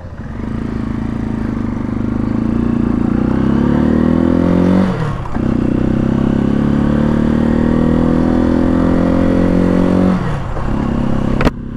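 Janus Phoenix 250's single-cylinder engine accelerating, its pitch climbing steadily, then dropping briefly at two upshifts about five and ten seconds in. A sharp click near the end.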